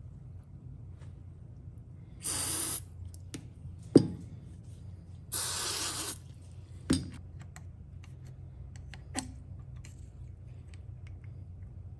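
Two short hissing sprays of lubricant from an aerosol can onto the piston and wrist pin, the second a little longer, with a sharp knock between them and another shortly after, as parts or the can are handled.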